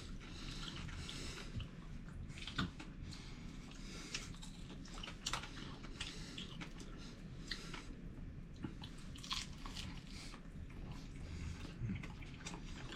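A person biting and chewing cooked bluegill, crunching on its fins, with irregular small crunches and clicks.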